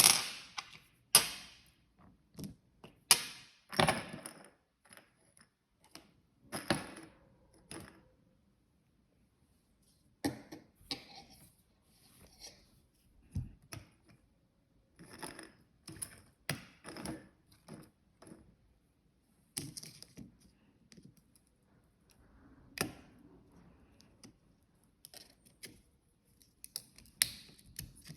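Irregular clicks, taps and short rustles of small objects being handled, a dozen or so scattered sharp knocks with brief scuffing noises between them and a few quiet gaps.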